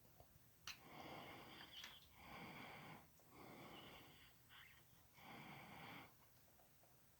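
Faint sandpaper rubbing on small model-train wheels and gears, in about four rasping strokes of a second or so each, with a sharp click just before the first.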